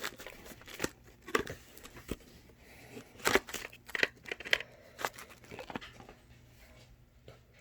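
Packaging being unwrapped by hand: irregular crinkling, rustling and tearing with scattered sharp clicks and taps.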